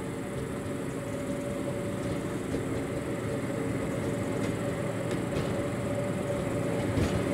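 Class 810 railbus's diesel engine running as the railcar rolls slowly closer, a steady drone that grows gradually louder.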